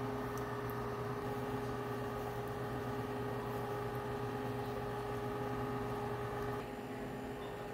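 A steady mechanical hum with several steady tones in it; part of the hum drops out and it gets a little quieter a little over six seconds in.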